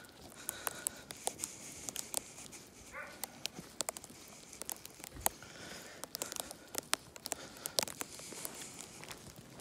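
Irregular crunching and sharp ticking: footsteps on snow-covered ground with icy sleet pellets pelting a coat. A brief squeak-like sound about three seconds in.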